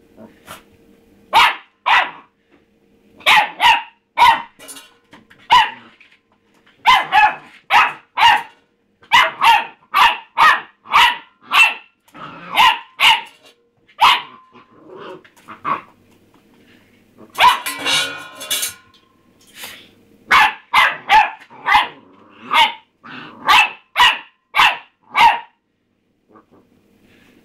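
A puppy barking over and over at its empty food bowl: short, sharp barks in irregular runs of two to four with brief pauses, and one longer, rougher outburst a little past halfway. The barking stops a couple of seconds before the end.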